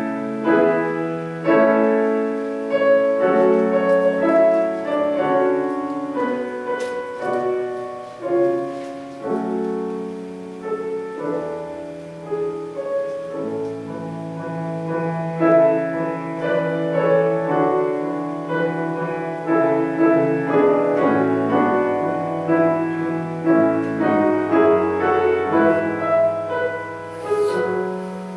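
Grand piano played solo: a melody over sustained chords, the notes ringing on.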